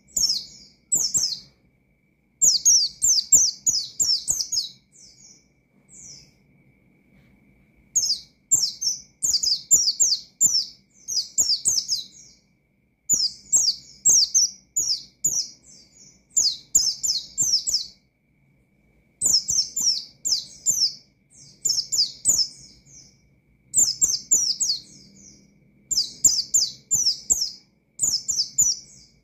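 White-eye (pleci) singing vigorously: rapid, high-pitched chattering and twittering phrases in bursts of a second or two, separated by short pauses.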